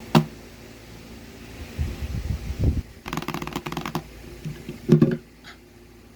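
Handling noises: a sharp knock, some low rumbling, then a quick clicking rattle lasting about a second, and another knock about five seconds in.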